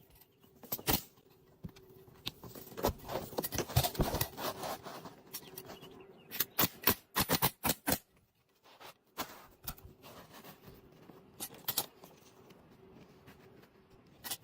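Asphalt roof shingles being handled and set in place: scraping and rustling with scattered sharp knocks, including a quick run of several about six to eight seconds in.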